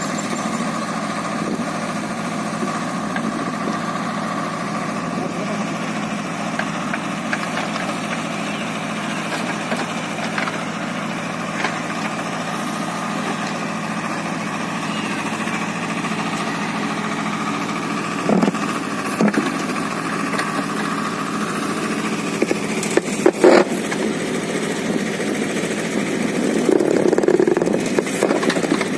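Swaraj 724 XM tractor's two-cylinder diesel engine running steadily. A few sharp knocks come through about two-thirds of the way in, and the sound swells louder near the end.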